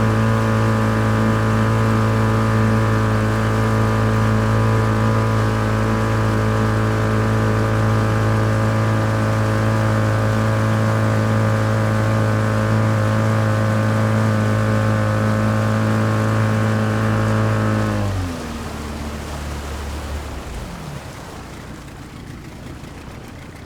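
Small outboard motor on an aluminium fishing boat running at a steady speed; about 18 seconds in its pitch and level drop sharply as it slows, and the sound then dies away.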